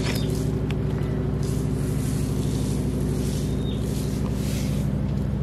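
A steady low engine hum, with three or four short rattling hisses of pesticide granules shaken from a plastic bottle onto soil.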